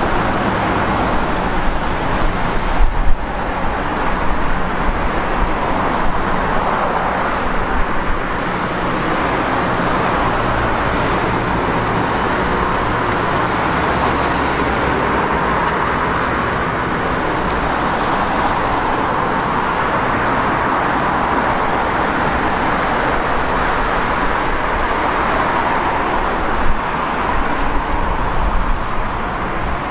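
Steady mechanical rushing noise with a low engine hum underneath, and a short knock about three seconds in.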